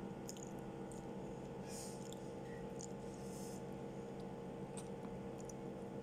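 Close-miked eating: soft chewing and a few small wet, squishy mouth noises and clicks, over a steady low electrical hum.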